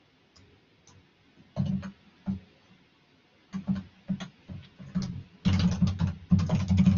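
Typing on a computer keyboard: a few separate keystrokes, then a quick, dense run of keys near the end.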